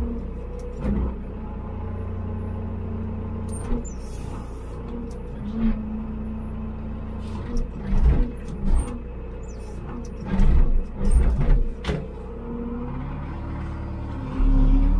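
A farm vehicle's engine running, its pitch rising and falling now and then, with metal clunks and knocks: single ones about a second in and around eight seconds, and several close together around ten to twelve seconds.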